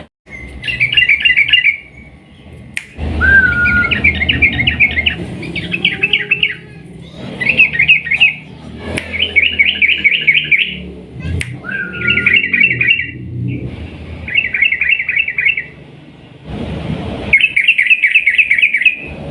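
Yellow-vented bulbul (trucukan) singing loud, fast chattering phrases, each about a second long, about nine in a row with short pauses between them, over a low background rumble.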